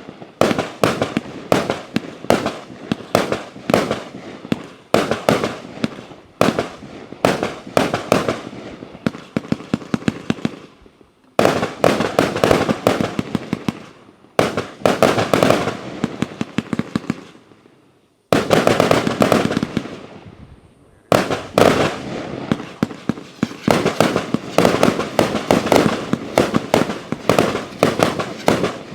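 A 148-shot consumer compound firework cake firing: rapid launches and aerial bursts in quick succession, broken by short pauses between segments, each followed by a dense volley.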